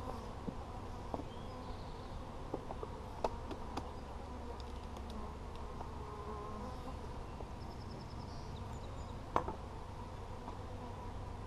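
Honey bees buzzing in numbers around an opened hive: a steady hum with a few light clicks and knocks, the sharpest about nine seconds in.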